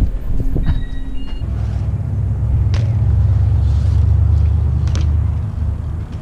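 A loud, low rumble that swells in about a second in and holds for roughly four seconds before easing off, with a couple of sharp clicks over it.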